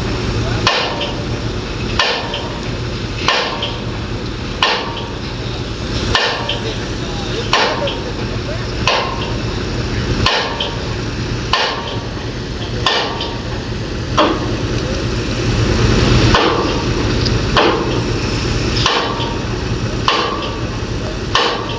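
Steady hammering, one blow about every 1.3 seconds, over a constant low drone.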